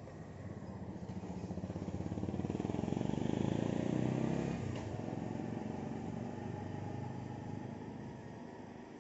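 A motor vehicle passing by: its engine grows louder to a peak about four seconds in, then fades away.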